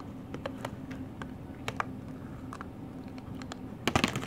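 Samoyed puppy chewing a hard plastic wishbone chew toy inside a plastic cone: irregular clicks and taps of teeth and toy, with a quick cluster of louder knocks against the cone near the end.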